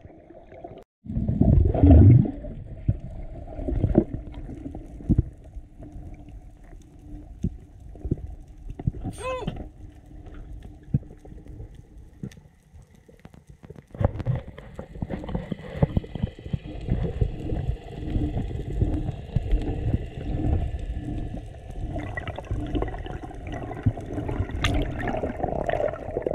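Muffled underwater water noise heard through a GoPro's housing during a freedive: a loud rush of water and bubbles about two seconds in, then a low churning with many dull knocks. A short rising whistle about nine seconds in.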